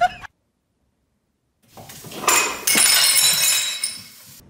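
A loud crash with a shattering, clinking clatter of breaking glass, starting about halfway through and lasting about a second and a half.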